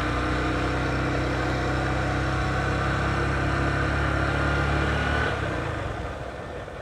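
Motorcycle engine running at a steady low speed while riding, with a constant even note; it fades away over the last second or so.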